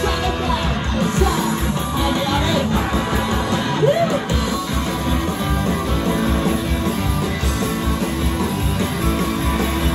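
Live rock band playing: electric guitars, bass and drums at full volume, with a singer's voice in the first few seconds.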